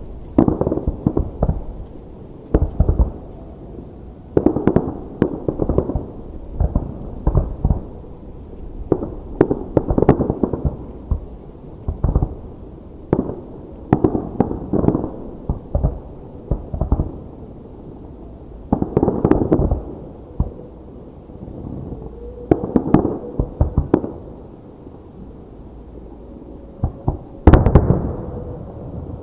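Fireworks display: aerial shells bursting in rapid volleys of booms and crackles, with brief lulls between volleys. The loudest, densest volley comes near the end.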